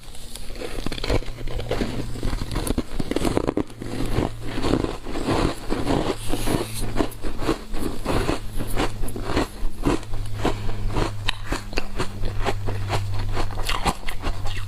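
Biting and chewing frozen matcha-powder ice: a fast, irregular run of crisp crunches and cracks over a low steady hum.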